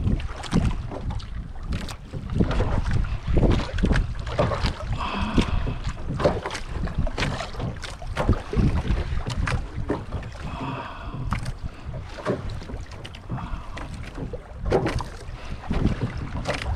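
Wind buffeting the microphone and water moving against the outrigger boat, with frequent knocks and handling noise as a fish is cranked up on a jigging reel. A brief higher tone recurs about every six seconds.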